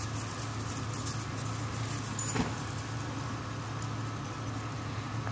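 Jeep Cherokee XJ's engine running steadily at low speed as it crawls up rock ledges, with a few light clicks and one knock about two and a half seconds in.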